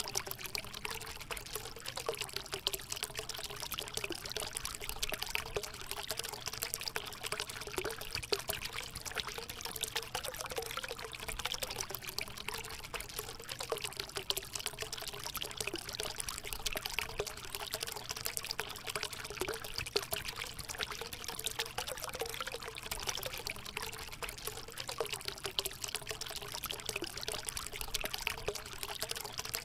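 Small waves lapping and trickling at the edge of a calm sea, a steady fizzing wash.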